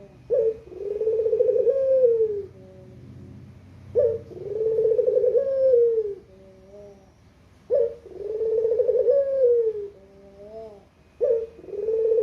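Puter dove (domestic collared dove) cooing: four calls about every three and a half seconds. Each call is a sharp short note, then a long rolling coo that falls in pitch at its end, followed by a softer short note.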